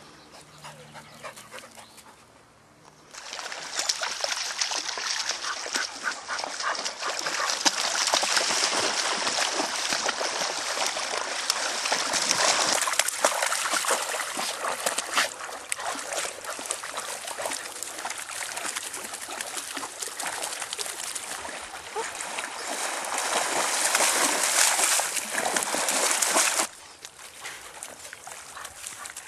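Water splashing and sloshing as an English Springer Spaniel swims and paddles through a lake close by. The splashing starts about three seconds in and drops off suddenly near the end.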